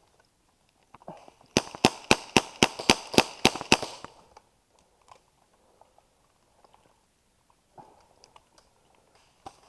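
Airsoft gun firing a quick string of about a dozen sharp shots, about four or five a second, stopping after a little over two seconds; a few faint clicks and rustles follow.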